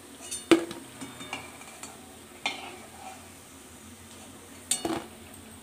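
Metal spatula knocking and scraping against a steel kadai while fried boras are lifted out of shallow frying oil, with a faint oil sizzle underneath. About five sharp, ringing metal knocks, the loudest about half a second in and a quick double knock near the end.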